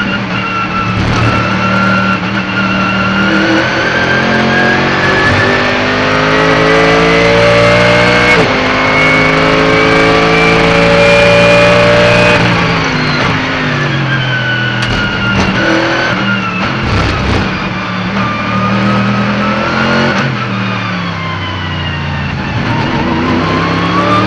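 Mercedes-AMG GT3's naturally aspirated V8 at racing speed, heard onboard. It climbs in pitch through the gears with an upshift about eight seconds in, then falls sharply about twelve seconds in as the car slows and shifts down, and picks up again near the end.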